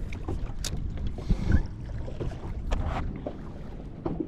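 Wind buffeting the microphone and small waves lapping against a boat hull, an uneven low rumble, with a few light clicks or knocks.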